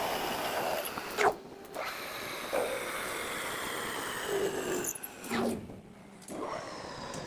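A machine tool running with a steady whine, likely a metal lathe, broken by several sharp knocks and clanks; the whine drifts slightly lower.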